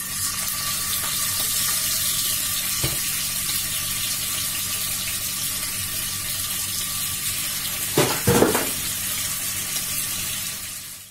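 Pieces of lamb sizzling steadily as they fry in hot oil in a frying pan. A light knock comes about three seconds in and a brief clatter around eight seconds, as tongs work the meat and a second piece goes into the pan.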